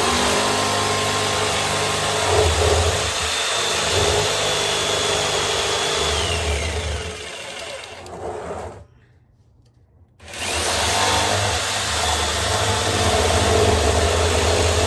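Electric jigsaw running and cutting into a 55-gallon barrel with a steady motor whine. It stops about nine seconds in for a second or so, then starts up again.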